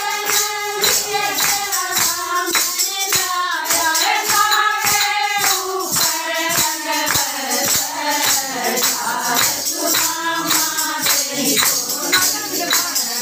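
Group of women singing a Haryanvi bhajan over a steady beat of hand claps and sharp percussive strikes.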